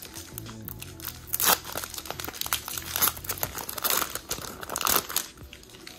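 Foil Pokémon booster-pack wrappers crinkling and tearing as packs are ripped open, a run of crackling rustles with louder bursts about a second and a half in, around the middle and near the end.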